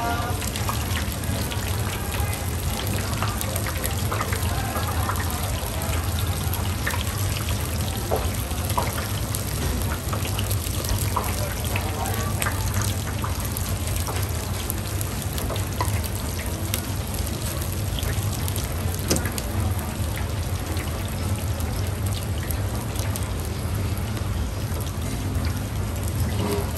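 Steady sizzling hiss of spiral-cut potatoes deep-frying in oil, with scattered small clicks over a low hum.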